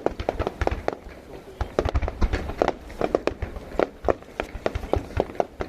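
Fireworks going off: a rapid, irregular run of sharp cracks and pops, several a second, with heavier low booms about two seconds in.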